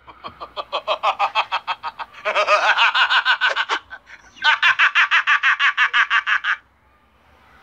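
High-pitched laughter in quick repeated bursts, about seven a second, in three bouts with short breaks between them, stopping about a second before the end.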